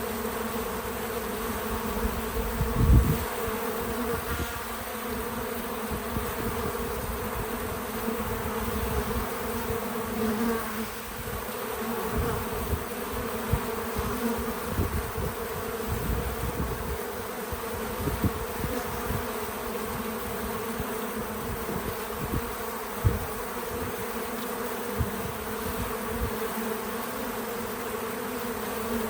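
Many bees buzzing around a feeder in a steady, even drone, with a few brief low bumps, the loudest about three seconds in.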